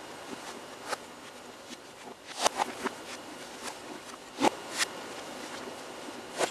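Shoes stepping and scuffing on a hard tiled floor: a handful of irregular knocks and scuffs, the loudest about two and a half and four and a half seconds in, over a steady tape hiss.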